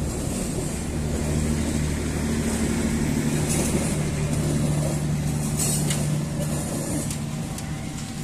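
Passenger train carriages rolling past on the rails, a steady running noise with a low drone under it. It eases a little near the end as the last carriage moves away.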